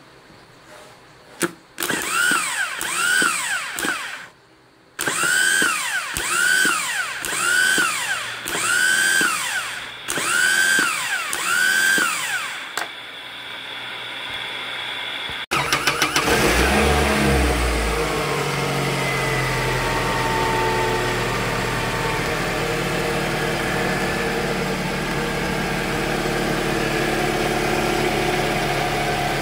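Toyota Camry engine being cranked by its starter motor, a whine rising and falling about once a second. About halfway through the engine catches with a few low thuds and settles into a steady run.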